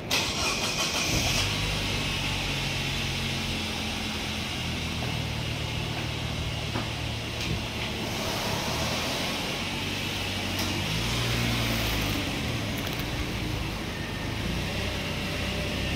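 A car engine idling steadily, with a slight change in pitch about two-thirds of the way through.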